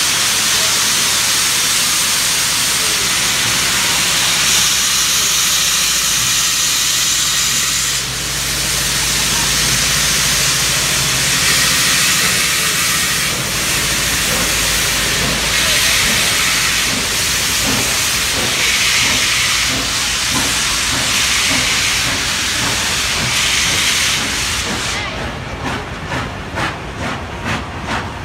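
Steam locomotive 3642, a NSW C36 class 4-6-0, pulling away with loud steam hiss from around its cylinders and slow chuffs that swell every two seconds or so. Near the end the hiss fades and the passing carriages' wheels start clicking quickly over the rail joints.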